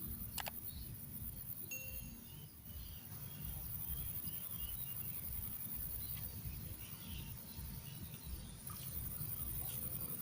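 Outdoor ambience by a pond: a low, uneven rumble of wind on the microphone, a steady high hiss, and scattered faint chirps, with one sharp click less than a second in.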